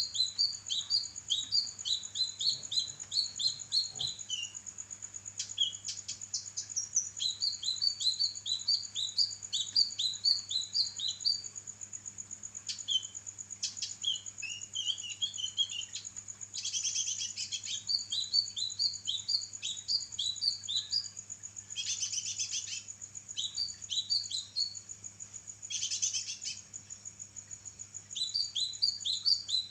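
Caged kinoi songbird singing prolifically: runs of quick, falling chirps, several a second, broken by short pauses and a few harsher trilled bursts. A steady high thin tone sounds underneath.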